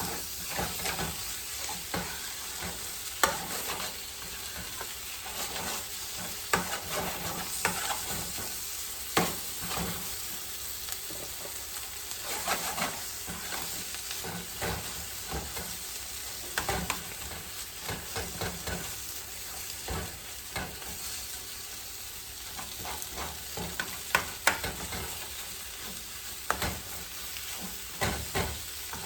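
Cabbage sizzling in a hot pan while a utensil stirs it. There is a steady frying hiss with scattered clicks and scrapes of the utensil against the pan.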